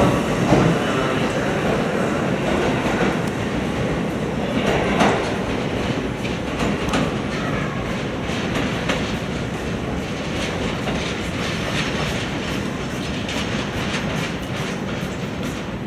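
Toyama Chiho Railway 20020 series electric train (the former Seibu 10000 series New Red Arrow) running along the line, heard from on board: a steady rumble with irregular clicks of the wheels over rail joints.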